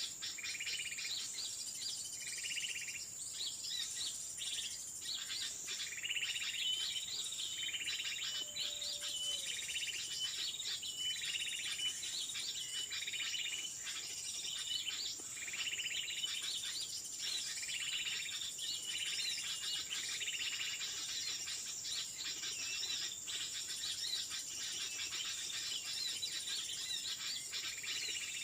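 Birds calling in a repeated short phrase about once a second, with scattered chirps, over a steady high insect drone.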